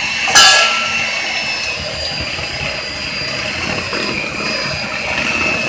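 Electric hand mixer running steadily with a high motor whine, its beaters blending eggs into cream cheese batter, with one sharp clink about half a second in.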